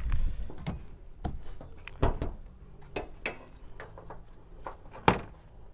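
Scattered light clicks and knocks over a low rumble, with one sharper, louder knock about five seconds in.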